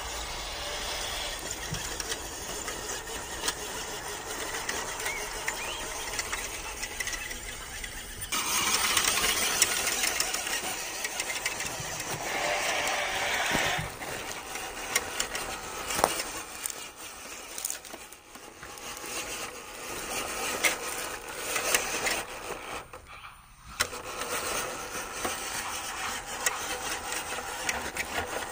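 WPL B-1 1:16-scale 4WD RC truck driving over dirt and gravel, its small battery-powered electric motor and gearbox running continuously. The sound changes abruptly a few times.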